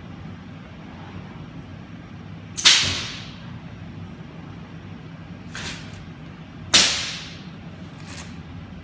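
Custom pneumatic gripper on a robot arm venting air as it works: two sharp blasts of hissing air about four seconds apart, each fading over half a second, with two fainter short hisses between and after, over a steady low hum.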